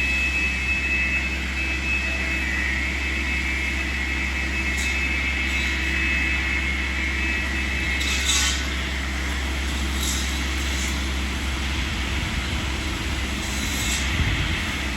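Tree-trimming rig's engine and hydraulics running steadily, heard from a distance, with a high steady whine that fades out about halfway through.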